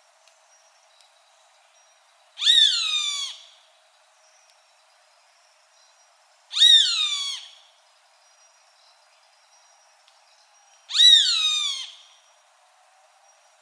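Roadside hawk (Rupornis magnirostris) calling three times, about four seconds apart. Each call is a drawn-out scream of about a second that slurs downward in pitch.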